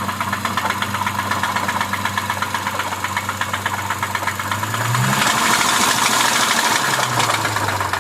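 2006 Lexus IS250's 2.5-litre V6 running with a rapid, even knocking/rattling tick. About halfway through it is revved up, gets louder, and settles back toward idle near the end.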